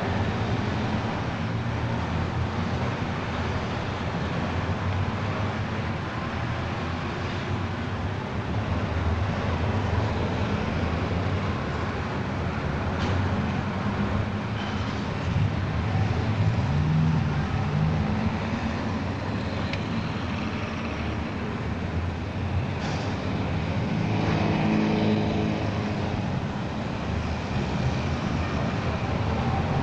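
Busy city street traffic: car and bus engines running and passing in a steady rumble. An engine note rises about halfway through, and a louder engine passes near the end.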